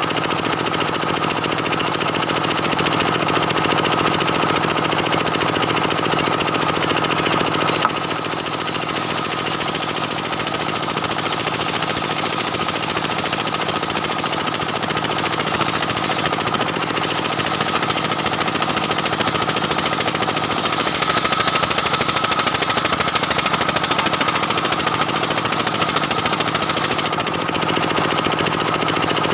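Stihl 070 two-stroke chainsaw running at full throttle, ripping lengthwise through a dense-grained jackfruit-wood beam. A steady high whine rides over the engine, with a brief dip in level about eight seconds in.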